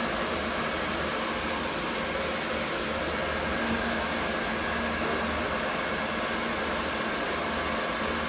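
Steady whir of cooling fans from a running GPU mining rig and its server power supply, with a few faint steady tones in the hum.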